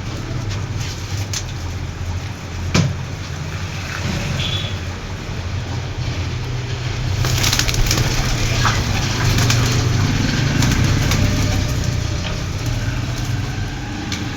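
A steady low mechanical hum with scattered clicks and rustling, which grow busier about halfway through.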